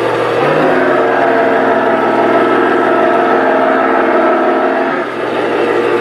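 Small electric motor of a toy car whining steadily. Its pitch steps up about half a second in and drops back near the end.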